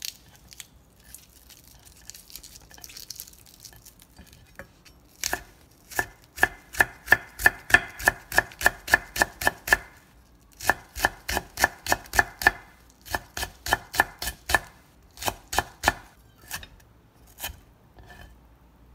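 Kitchen knife slicing folded green onion leaves into thin shreds on a wooden cutting board: runs of quick, even chops at about four or five a second, broken by short pauses. The first few seconds hold only quieter handling of the leaves.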